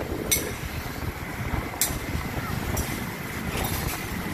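Steady wind buffeting on the microphone and engine hum while riding on the back of a motorbike through scooter traffic, with three brief high clicks.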